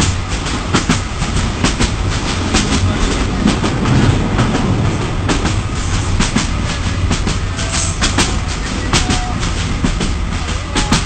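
Passenger train running at speed, heard from inside a carriage: a steady low rumble with frequent, irregular clicks and knocks of the wheels on the track.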